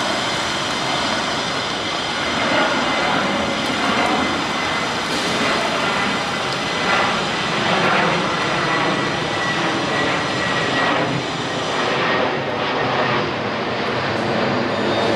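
Twin-engine jet airliner passing low overhead on approach to land. Its engines make a loud, steady roar with a high whine running through it.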